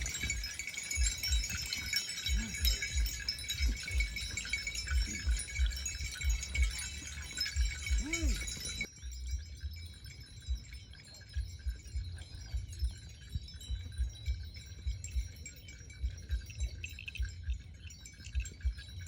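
Small bell tinkling over repeated low thumps. About nine seconds in the sound cuts abruptly to a quieter, fainter tinkling with the thumps continuing.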